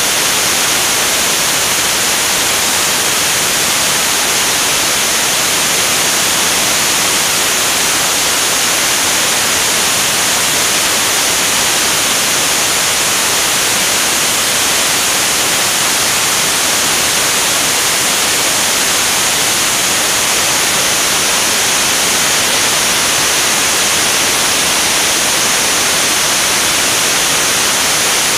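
Loud, steady rushing hiss of airflow over a wing-mounted camera in flight, with no engine tone standing out and no change in level.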